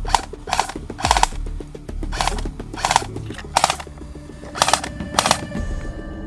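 Airsoft guns firing single shots at irregular intervals, about eight short sharp cracks.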